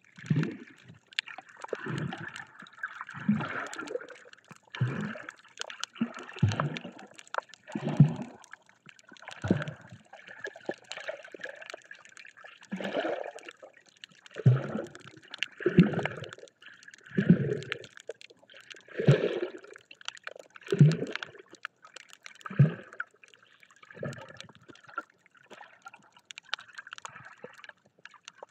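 Water sloshing and gurgling around a camera held underwater by a snorkeler swimming over a reef. It comes as muffled pulses about every one and a half seconds over a steady hiss.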